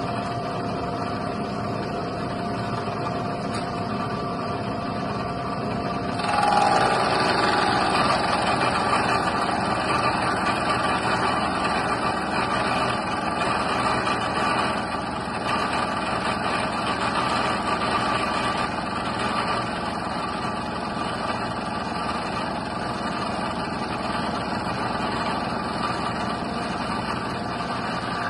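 Milling machine running steadily as it cuts new splines on a shortened jet-pump driveshaft held in a dividing head. It gets louder and harsher about six seconds in.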